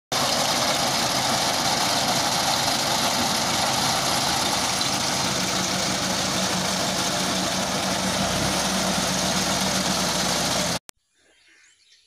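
John Deere tractor's diesel engine running steadily while it drives a front-mounted paddy reaper through the field. The sound cuts off suddenly near the end.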